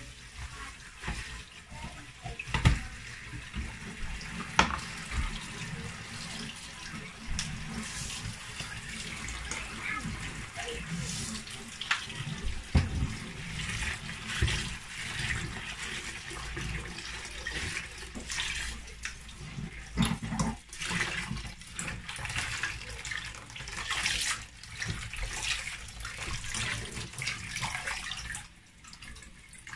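Kitchen tap running into a plastic tub of kale in a stainless steel sink, with hands swishing and splashing the leaves as they are rinsed. Occasional sharp knocks, the loudest a few seconds in.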